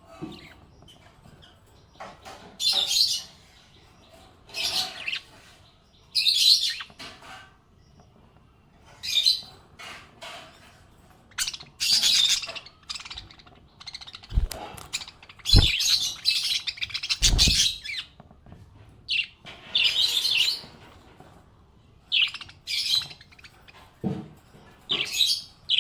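Small pet parrots chirping in short bursts every second or two. A few dull low thumps fall in the middle.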